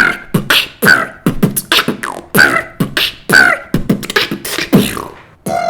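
Beatboxer performing a rhythmic vocal sound-effect pattern: sharp percussive mouth sounds, about two to three a second, mixed with pitched vocal sweeps that fall in pitch, stopping near the end.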